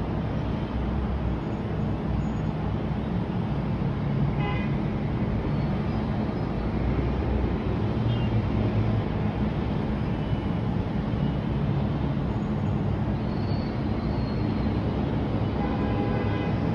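Steady low rumble of city traffic, with a few faint brief tones about four seconds in and near the end.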